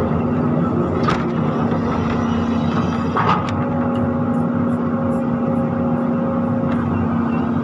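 Volvo 210 excavator's diesel engine running steadily under load as the bucket swings back from the dump truck and digs into the soil pile. Two sharp knocks come about one and three seconds in.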